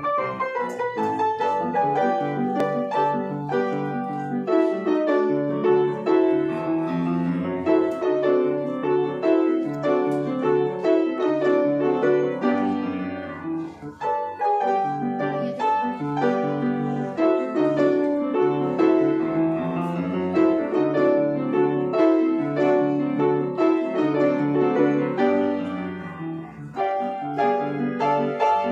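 Solo grand piano playing a quick run of notes in a student recital piece. It dips briefly quieter about halfway through and again near the end.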